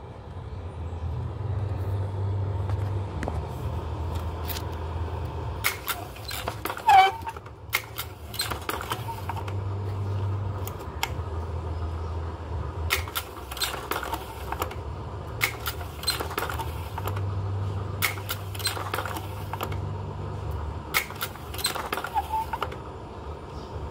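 Rollei slide projector running with a low fan hum, broken by repeated mechanical clacks of its slide-change mechanism every second or two as the slides are cycled.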